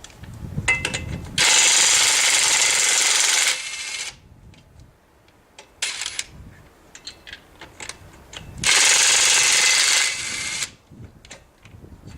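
Ridgid 18V brushless half-inch cordless impact wrench hammering on lug nuts in two bursts of about two seconds each, a few seconds apart, each easing off briefly before it stops. Metal clinks and clanks of the socket and nuts fall between the bursts.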